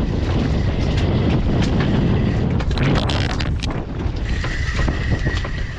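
Wind buffeting the microphone on an open boat at sea: a loud, steady rumble. Scattered sharp clicks run through it, and a steady high whine joins about four seconds in.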